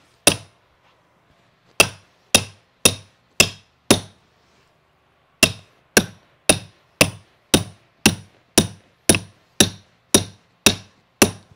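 Hammer striking a carpet stair tool (tucker), sharp blows at about two a second in three runs with two short pauses. The blows drive a stair runner down into the crotch of the step so the smooth-edge tack strip pins grab it.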